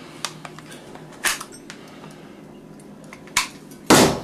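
Thompson submachine gun being handled: several sharp metallic clacks and clicks, the loudest one near the end.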